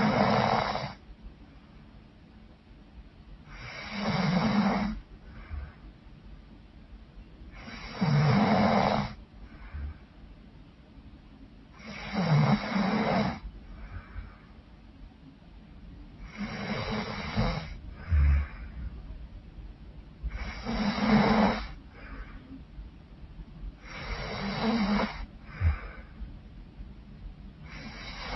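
A woman snoring loudly, one loud snore about every four seconds, each followed by a short, softer sound.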